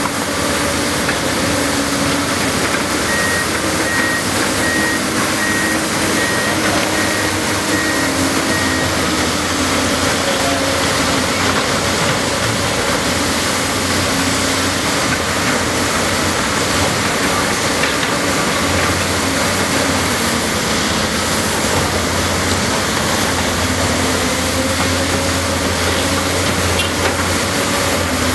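Large Cat 385BL hydraulic excavator working, its diesel engine running steadily with the pitch drifting up and down as the hydraulics take load, amid general construction-site machinery noise. A backup alarm beeps evenly from a few seconds in for about six seconds.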